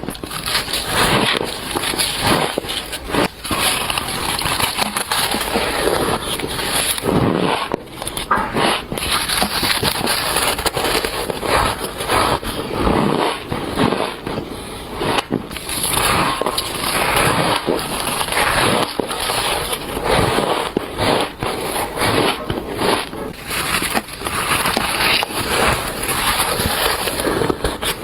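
Bites into squeaky, crunchy frozen shaved ice: a dense, unbroken run of crunches and sharp cracks, one bite after another.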